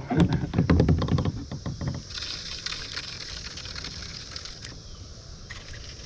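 Gear being handled in a plastic kayak: a rapid run of knocks, clatter and splashes for about two seconds, then a quieter, steady outdoor background with a few scattered ticks.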